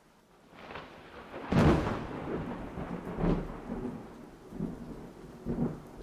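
Thunderstorm: thunder rolling in several surges, the loudest crack about a second and a half in, over rain.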